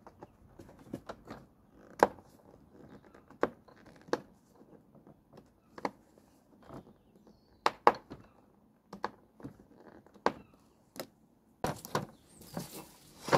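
Irregular clicks and knocks of a screwdriver working out a screw in a Flymo hover mower's plastic deck, with tools knocking on the bench, and a short stretch of scuffing handling noise near the end.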